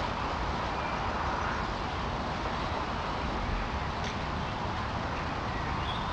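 Steady outdoor background noise, an even hiss with no distinct events, and a faint click about four seconds in.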